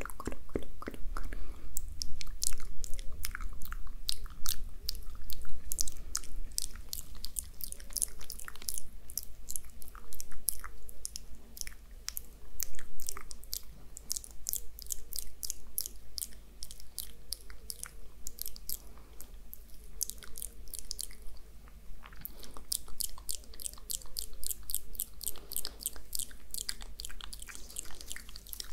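Close-microphone ASMR mouth sounds: quick runs of small, sharp lip and tongue clicks, thinning out briefly about three quarters of the way through.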